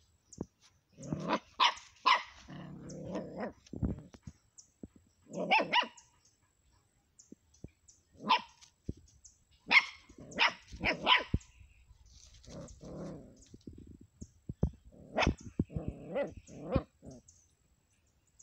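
A puppy barking in play, short sharp yaps in little groups a few seconds apart, with low growls in between.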